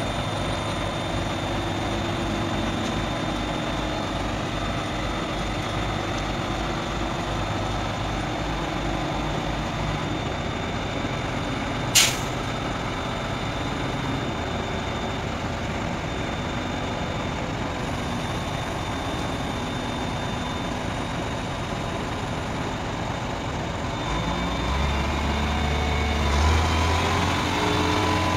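Diesel engine of a Demag AC 615 mobile crane running steadily while the crane works, with one short sharp hiss about twelve seconds in. The engine grows louder near the end.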